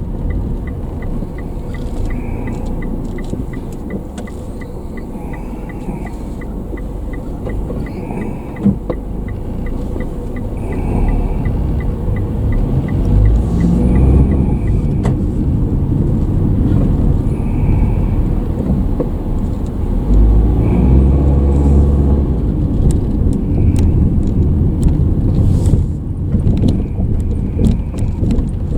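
Car driving, heard from inside: steady engine and road rumble, with a light ticking about two or three times a second that stops about halfway. The engine note rises twice as the car speeds up, and the rumble is louder after the second time.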